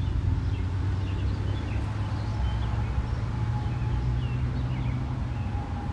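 Small birds chirping in short, scattered calls over a steady low rumble, with a faint held tone that slowly sinks in pitch.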